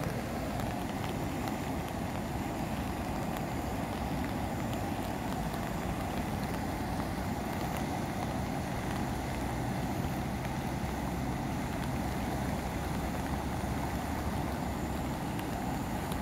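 Steady rush of a flood-swollen river running high after heavy rain, with whitewater breaking across the channel; an even, unbroken roar heavy in the lows.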